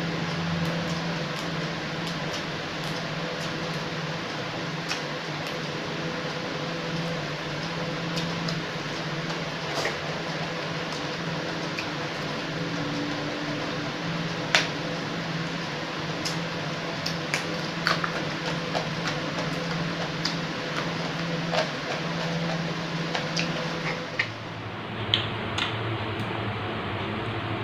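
Steady fan-like hum and hiss, with scattered sharp clicks and crunches from chewing raw vegetables and handling leaves by hand. The background hum changes pitch near the end.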